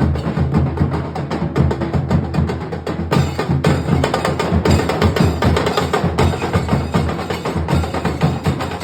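Nasik dhol drums beaten hard in a fast, dense rhythm: deep booms under sharp, cracking stick strokes, with no break.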